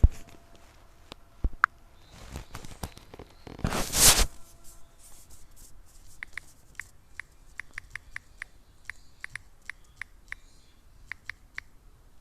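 A short scraping rustle about four seconds in, the loudest sound, then a run of small sharp clicks, irregular, roughly two or three a second, through the second half.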